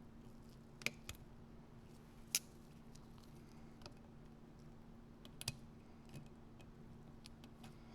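Faint, sparse clicks and taps of small metal carburetor parts and hand tools being handled, a few separate clicks with the sharpest about one and two and a half seconds in, over a steady low hum.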